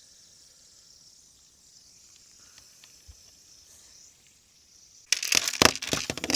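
Quiet at first, then about five seconds in a loud, rapid plastic clattering: a spinning fidget spinner striking a Lego minifigure and knocking its pieces apart.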